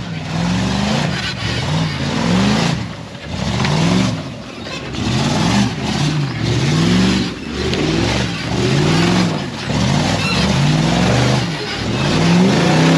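Off-road 4x4's engine revved hard in repeated bursts, about one a second, each rising and falling in pitch, over a steady rough noise, as the rig is driven at a ledge under heavy load.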